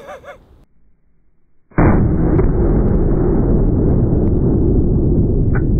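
Slowed-down shot of a Smith & Wesson .500 Magnum revolver in slow motion: a deep, drawn-out boom that comes in abruptly about two seconds in and carries on as a loud, unbroken rumble with no sharp high end. A brief laugh is heard at the start.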